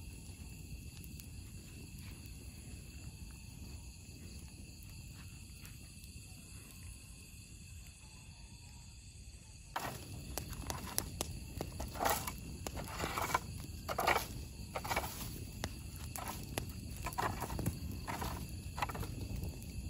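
Steady trilling of night insects over a low rumble; about halfway through, a wood fire roasting bamboo tubes of sticky rice begins crackling and snapping loudly and irregularly.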